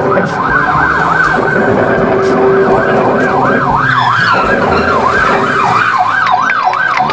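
Toy police car's electronic siren, a fast warbling tone that rises and falls about two to three times a second.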